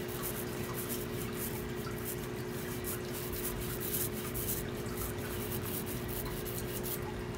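Small paint roller rolling wet paint over an aquarium's glass panel, a sticky rubbing crackle, over a steady hum.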